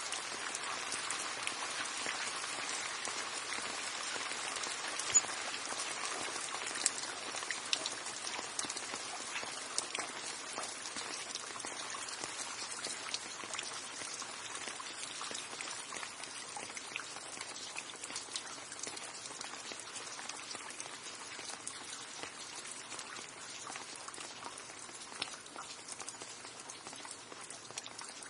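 Steady rain falling, with a hiss of fine drops and many separate drips and ticks on a hard surface, a few of them sharp and loud near the start; the rain eases slightly toward the end.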